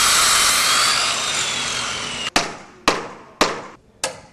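Handheld electric circular saw cutting a wooden board, a steady whining cut that fades over the first two seconds. Then hammer blows on a timber frame: four sharp strikes about half a second apart.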